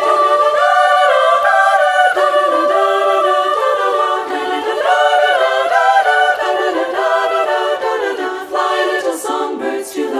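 Treble choir of sopranos and altos singing a cappella in three-part harmony, several high voice lines moving over a long held upper note.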